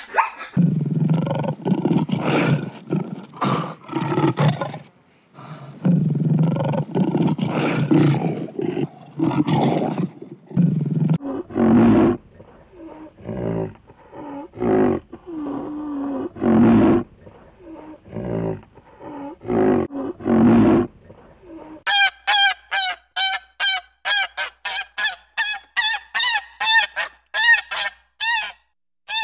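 Animal calls in three stretches. For about the first eleven seconds a zebra gives rough, low braying barks; from about 11 seconds come short, separate low snorts and grunts of a rhinoceros; from about 22 seconds a fast series of repeated waterfowl honks follows.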